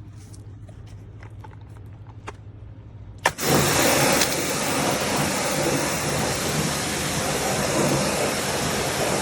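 A pressure washer's engine runs with a low steady hum and a few faint clicks. A little over three seconds in there is a sharp click, then a loud steady hiss of the high-pressure water jet spraying.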